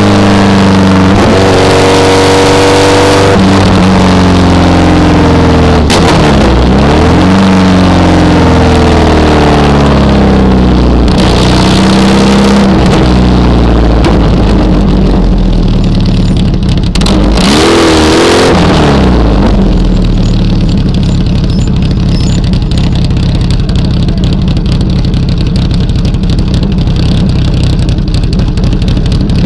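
Birkin S3 engine heard from on board, revving up and falling back through gear changes, with a few quick throttle blips shortly before it slows. About two-thirds of the way through the wind rush fades and the engine settles to a steady low note, running slowly as the car comes off the pace.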